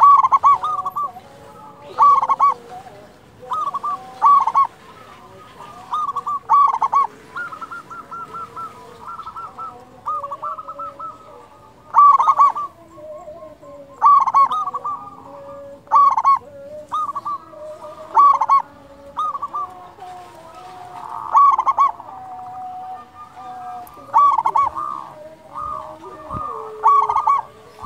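Zebra dove (perkutut) cooing: loud, short phrases of rapid staccato notes repeated about every one to two seconds, with fainter, lower calls between the phrases.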